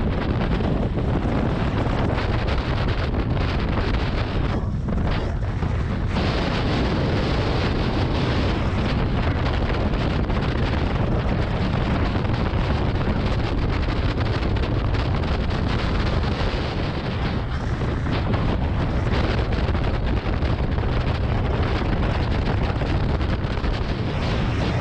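Steady, loud wind rush on an action camera's microphone during a fast sled descent, mixed with the scraping and rattling of the Lindauer Top sled's runners over the packed snow of the run.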